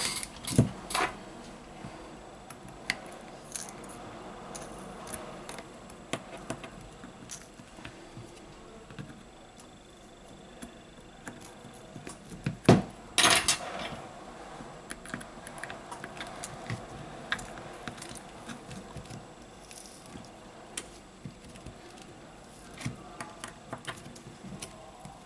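Hand tools and fingers prying at a smartphone's glued-in battery: scattered light clicks and scrapes of plastic and metal, with one sharp knock followed by a short scrape about halfway through.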